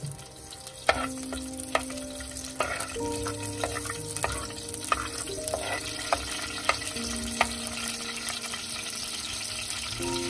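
Oil sizzling in a blackened cooking pot while a metal spoon stirs the frying green strips, scraping and clicking against the pot about once or twice a second.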